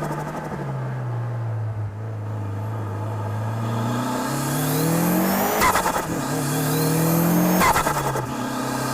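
Mitsubishi Lancer Evolution V's turbocharged 2.0 L four-cylinder (4G63T) idling, then revved twice with the turbo whistling as it spools. Each time the throttle is let off, a sharp rapid flutter comes from the turbo as the boost chatters back through the compressor. The engine then drops back toward idle.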